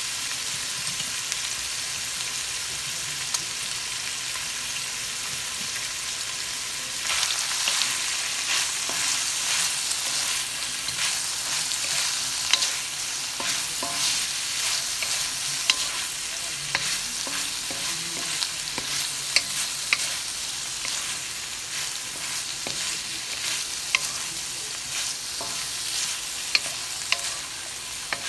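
Beef, asparagus and onion sizzling in a wok. About seven seconds in, a wooden spatula starts stirring and tossing the stir-fry: the sizzle gets louder, with scraping and sharp clicks of the spatula against the pan.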